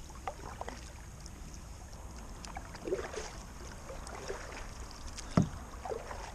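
Kayak paddling: the double-bladed paddle dipping and splashing, with water dripping off the blades and small knocks. One louder thump comes about five seconds in.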